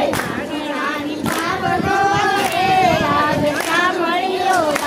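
A group of women singing a song together in unison, with long held, wavering notes, clapping their hands in time about once a second.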